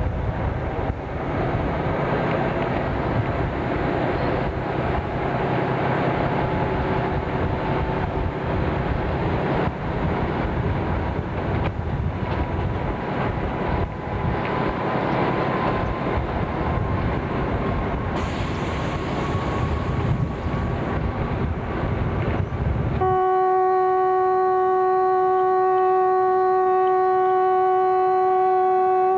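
Narrow gauge diesel locomotive running with its train: a steady din of engine and wheels on rail, the engine note slowly rising. About three quarters of the way through, a long, steady blast of the locomotive horn takes over and holds to the end.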